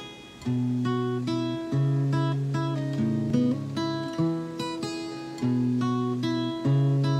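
Acoustic guitar with a capo playing the instrumental introduction of a song: picked and strummed chords with bass notes under them, a new chord about every second.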